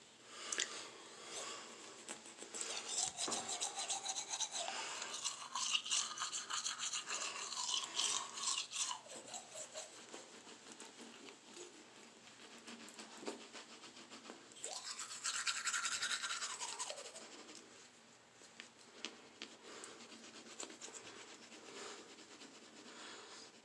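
Toothbrush scrubbing teeth by hand, a wet rasping brush sound that comes and goes, louder in spells near the start and again about fifteen seconds in.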